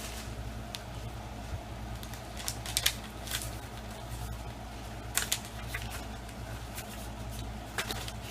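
Scattered clicks and rustles of packaging being handled and pulled apart during unboxing, over a steady low hum.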